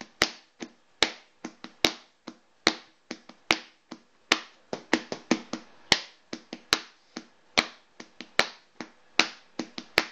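A rhythmic beat made by hand: sharp clicking taps in a steady pattern, a louder stroke a little more than once a second with quicker, lighter taps between.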